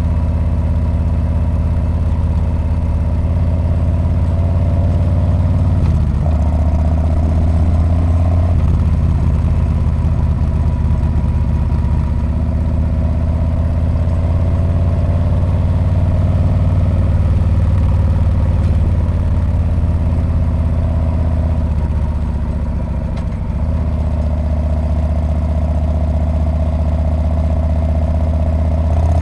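Harley-Davidson Street Bob V-twin running through its muffler while riding, a steady low exhaust note. Its pitch shifts in small steps a few times as the throttle changes, and it eases off briefly about two-thirds of the way in before picking up again.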